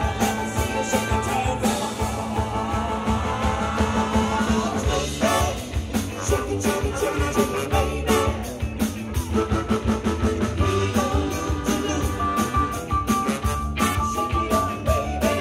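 Live soul-pop band playing an upbeat number: a woman singing over drums, electric guitar, bass guitar and a horn section of trombone, trumpet and saxophone, with a long held note in the last few seconds.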